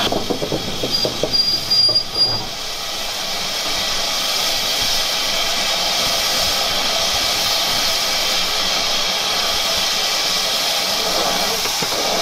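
GWR Saint-class 4-6-0 steam locomotive No. 2999 'Lady of Legend' clanking, with a short high squeal, for the first two seconds or so as it slows, then standing with a steady hiss of escaping steam.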